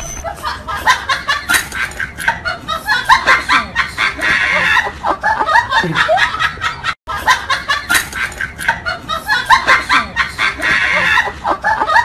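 Laughter sound effect: rapid high snickering giggles that break off for a moment about seven seconds in and then start again.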